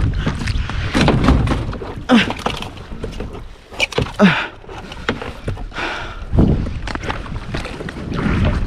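Wind buffeting the microphone on a kayak at sea, with several sharp knocks and thuds of gear against the kayak and a couple of short grunts.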